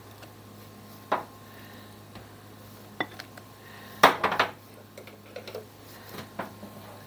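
A whisk and a plastic measuring cup clinking and knocking against a glass mixing bowl and a saucepan while hot milk mixture is ladled into egg yolks to temper them. There are a few sharp clinks, and the loudest cluster comes about four seconds in.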